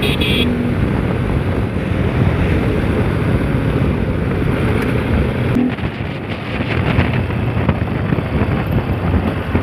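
Wind buffeting the microphone over the steady running of a modified Bajaj Pulsar RS200's single-cylinder engine and exhaust while riding along at speed.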